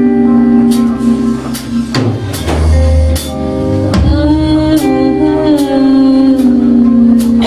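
Live rock band playing loudly: guitars and bass holding sustained chords over a drum kit, with cymbal hits roughly once a second and a heavy bass swell a few seconds in. A voice sings with gliding pitch in the middle.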